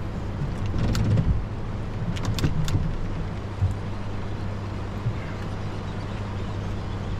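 Boat motor running steadily, a low hum, over water and wind noise. A few short clicks and knocks come about a second in and again around two and a half seconds in.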